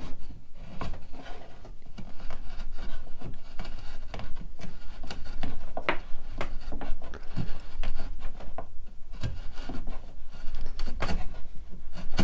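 A steel chisel paring the ends of glued wooden dowels flush with a board: irregular short slicing and scraping strokes of the blade across the wood.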